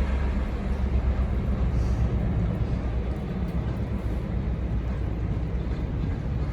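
Freight train running with a steady low rumble and engine hum that holds even throughout.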